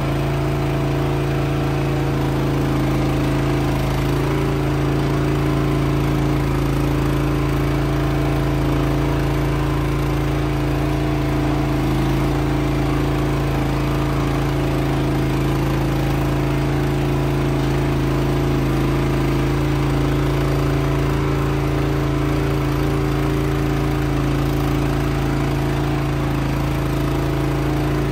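A machine running steadily, a constant engine-like hum with no change in speed.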